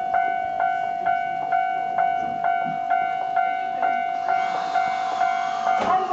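Japanese level-crossing warning bell at a Yokosuka Line station crossing, ringing steadily at a little over two strokes a second. From about four seconds in, a train's passing hiss and rumble rise beneath it.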